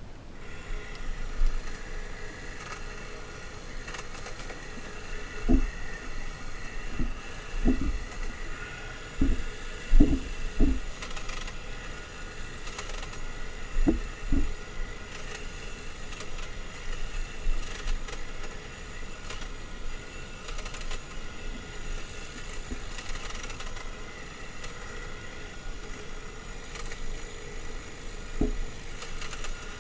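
Makita DUN461WZ 18-volt cordless long-reach hedge trimmer running steadily while trimming hedge growth, a constant motor and blade whine. Several low thumps come through it, mostly in the first half.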